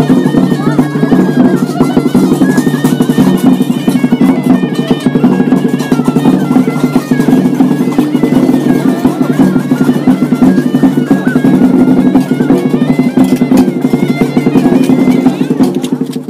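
Background music: a reedy wind instrument playing a stepping melody over a steady low drone, with light percussion.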